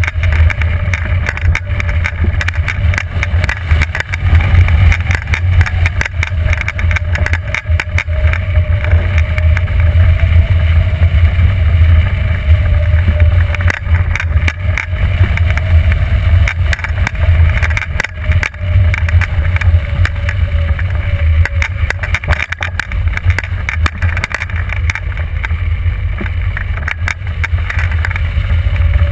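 Airflow rushing over a camera mounted on a hang glider's wing in flight: a loud, steady low rumble of wind on the microphone, with constant crackling buffets. A faint wavering hum runs under it through the middle.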